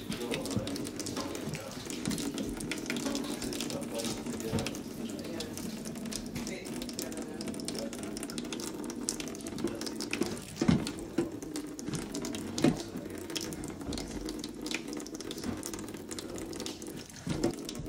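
Hands mixing and kneading flour-and-water dough for fried dumplings in a bowl: irregular wet clicks and knocks, over a steady hum.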